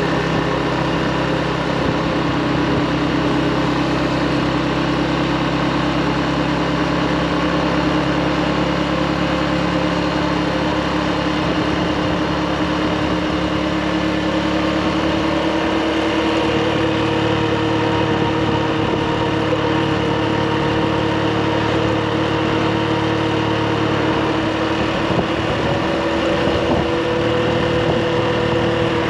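Motorbike engine running at a steady speed while riding, its pitch rising slowly, over a steady rush of noise.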